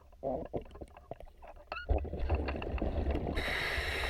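Underwater sound picked up by a diver's camera: scattered clicks and a low rumble of water moving against the housing, then, about three seconds in, a short hiss from the diver's scuba breathing regulator.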